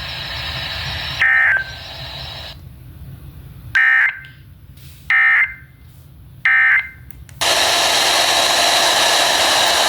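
Emergency Alert System digital data bursts on NOAA Weather Radio: four short screeching bursts of tones, the last three evenly spaced about a second and a half apart. These last three are the end-of-message code that closes a warning broadcast. A loud steady hiss follows, beginning about seven and a half seconds in.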